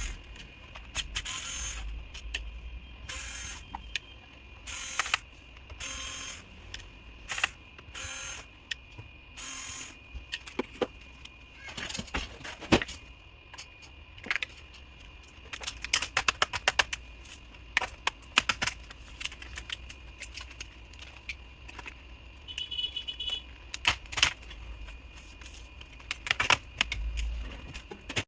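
Bottom cover of an ASUS ROG Strix G18 laptop being taken off: a string of short scraping, rattling bursts, then many sharp plastic clicks as the cover's clips are pried loose.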